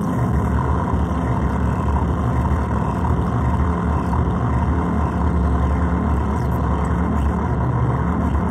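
Synthrotek Chaos NAND (4093 chip) noise pedal run through a Chase Bliss Habit delay and played over a powered speaker: a steady, dense electronic noise drone, heaviest in the bass.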